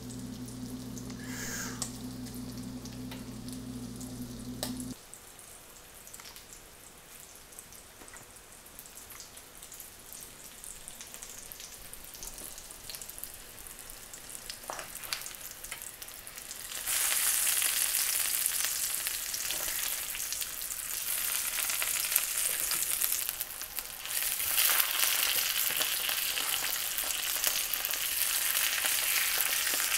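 Chinook salmon fillets frying skin-down in hot oil and butter in a cast-iron pan, a steady sizzle. The sizzle grows much louder about two-thirds of the way in, dips briefly, then comes back.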